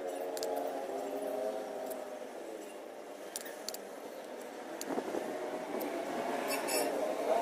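A motor vehicle engine running, its pitch slowly wavering and rising again near the end, with a few light clicks and a short scrape of a metal sculpting tool on wet cement.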